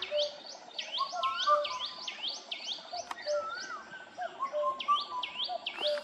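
Several birds calling at once: a fast run of high, sharply falling notes, about four a second, repeating throughout, over lower whistled notes.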